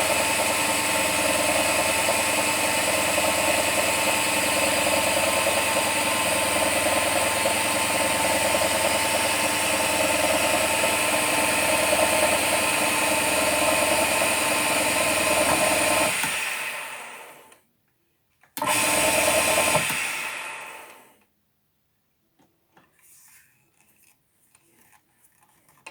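Belt-driven milling and grinding spindle on an Emco Compact 5 lathe running steadily at speed with a steady whine. About sixteen seconds in it is switched off and spins down; it is started again briefly a couple of seconds later and runs down to a stop once more, leaving only faint light handling noises.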